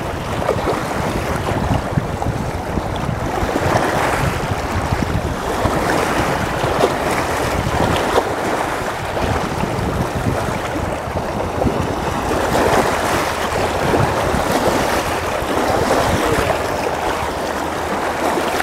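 Wind buffeting the microphone over the steady rush of fast-flowing river water.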